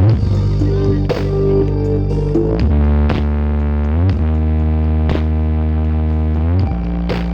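Loud electronic music played through a large sound system with eight subwoofers: deep, sustained bass notes that slide from pitch to pitch, with sharp drum hits roughly once a second.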